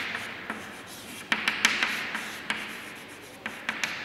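Chalk scratching on a chalkboard as words are written, with several sharp taps as the chalk meets the board at the start of strokes.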